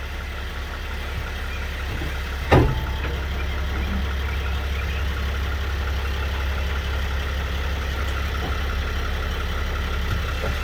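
2010 Mercedes Sprinter van idling, with one sharp clunk about two and a half seconds in as the drive is taken up between reverse and forward: clunking from the rear differential.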